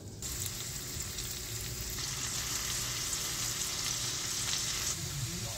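Sliced sausage with diced onions and bell peppers sizzling in a hot skillet: a steady frying hiss with light crackling that starts suddenly just after the start and grows louder over the first couple of seconds.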